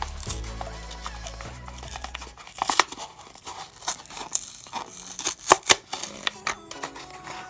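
Hot Wheels blister pack being torn open by hand: the clear plastic bubble crinkles and crackles as it is peeled off the cardboard card, in irregular bursts of tearing with a few sharp cracks, the loudest a little past halfway.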